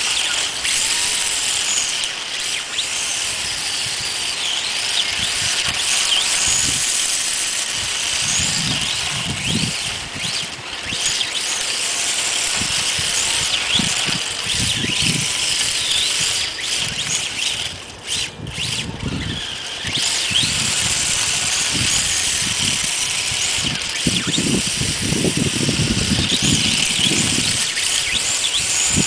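RC drift car's motor whining, its pitch rising and falling again and again as the car is driven and slid, with tyres squealing on asphalt.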